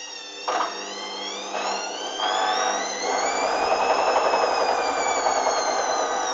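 Hoover Dynamic washing machine's motor whining up in pitch as the drum speeds up for a spin, the drum noise growing louder in steps over the first three seconds.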